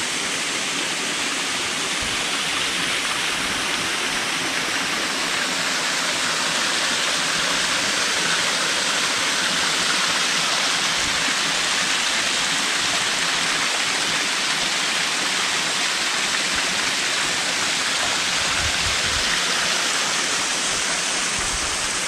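Small waterfall cascading over boulders into a pool: a steady, even rush of falling water.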